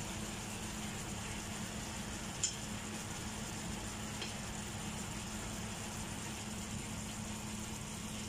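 Chicken pieces and chicken livers sizzling steadily in oil in a frying pan, over a steady low hum. A sharp click sounds about two and a half seconds in, and a fainter one a couple of seconds later.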